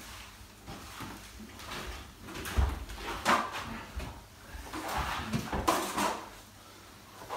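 Sponge float rubbed in irregular strokes over wet gypsum multi-finish plaster on a wall, a scraping swish with each stroke, livening up the top millimetre of the skim coat.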